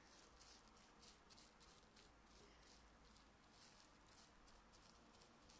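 Near silence, with faint, irregular scratchy strokes of a paintbrush working acrylic paint into a canvas bag.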